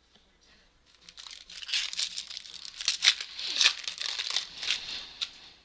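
Plastic wrapper of a 2014 Topps Platinum Football card pack being torn open and crinkled by hand: dense crackling with sharp snaps for about four seconds, starting about a second in.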